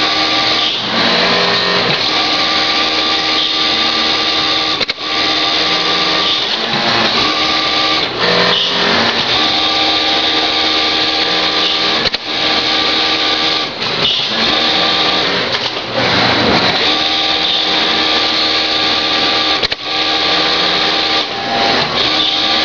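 Flatbed interlock sewing machine running at high speed in long bursts. It stops briefly every few seconds, three times with a sharp click, where the pneumatic tape cutter fires.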